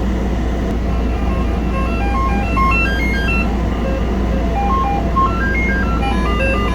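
Background music: a melody of quick single notes stepping up and down, starting about a second and a half in, over a steady low hum.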